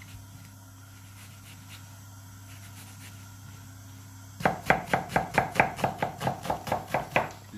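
Chef's knife dicing an onion on a cutting board: quiet at first, then from a little past halfway a quick run of blade strikes on the board, about six a second.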